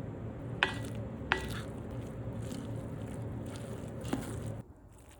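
Kitchen food-preparation sounds: three light, ringing clinks of utensils or dishes over a steady background hum, which cuts off abruptly near the end.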